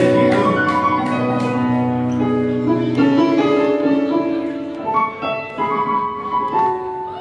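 Korg Kronos keyboard played with a piano sound: a gentle solo introduction of held chords and a melody line, the notes changing every half second or so.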